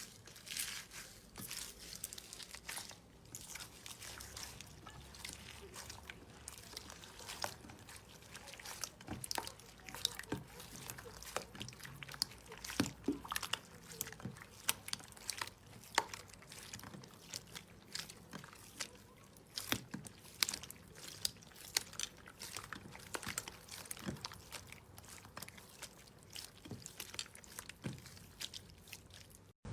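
Slime being squeezed and stretched by hand, giving irregular sticky clicks and wet pops, some louder snaps among softer squishing.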